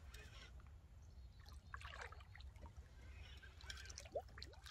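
Faint, intermittent splashing and trickling of water.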